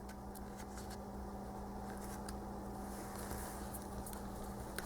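Faint paper handling, with a few light ticks and rustles from the pages of a thick magazine's postcard book being leafed through, over a steady low electrical hum.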